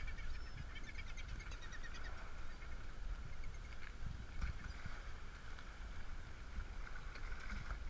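Sea water sloshing and lapping around a camera held at the surface, a steady low rumble with small knocks, with faint animal calls carrying over the water.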